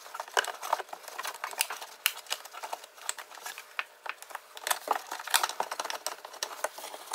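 Plastic wiring-harness connector and loom rustling and clicking against the inside of a pickup truck door as it is fed down into the door cavity: a steady run of small irregular clicks and rattles.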